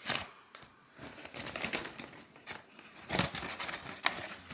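Paper envelope being torn open by hand, its paper rustling and crinkling with a few short, sharp rips, then the card inside slid out.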